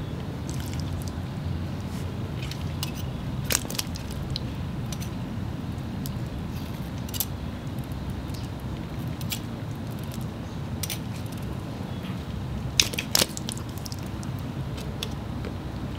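Asian bullfrog eating live worms: scattered sharp clicks and small crunches as it snaps them up and swallows. The loudest click comes about three and a half seconds in, and a close pair comes near the end. A steady low rumble runs underneath.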